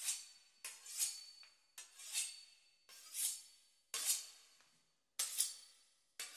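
A knife drawn repeatedly along a sharpening steel, about one stroke a second. Each stroke starts sharply and swells into a bright metallic hiss.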